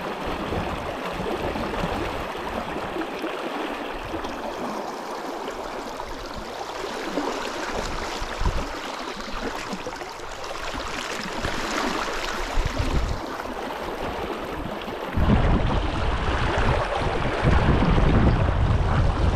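Brook water rushing steadily over a pool. About three-quarters of the way through, wind starts buffeting the microphone with a low rumble.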